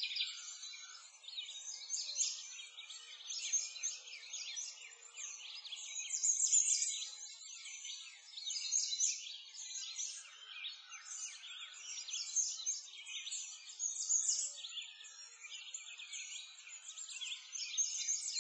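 A dense chorus of small birds chirping and singing without pause, all high-pitched, rising and falling in loudness.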